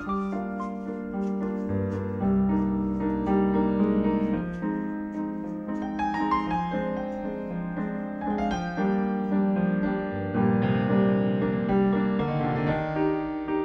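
Slow piano music, with held notes and chords changing every second or two.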